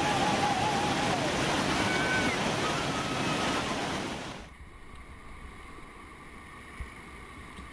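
Whitewater rapid roaring as a steady, even rush of falling water. About four and a half seconds in it cuts off suddenly to a much quieter wash of moving water with some wind on the microphone.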